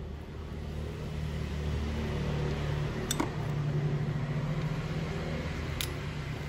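A steady low mechanical hum that grows louder over the first few seconds and eases off near the end, with a light click about three seconds in and another near the end.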